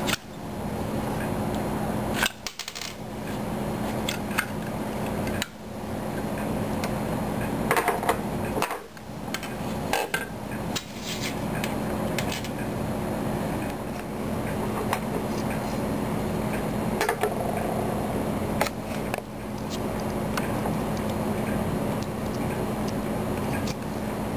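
Small metal and plastic parts of a KSC Glock 18C airsoft pistol's frame and trigger group clicking and clinking as they are handled and set down on a wooden table, scattered light clicks over a steady low hum.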